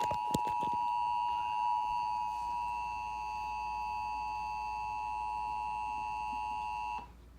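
Emergency weather alert tone announcing a tornado warning: a steady, loud electronic tone held for about seven seconds, cutting off suddenly near the end.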